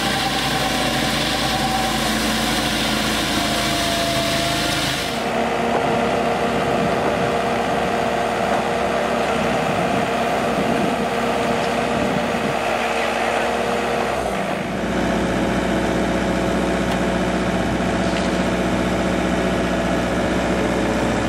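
Engine of a Rhin-O-Tuff ride-on concrete power trowel running as it finishes wet concrete. After about five seconds the sound changes abruptly to the engine of a Komatsu skid-steer loader running as it lifts the RR98 trowel on its forks, and it changes again about fifteen seconds in.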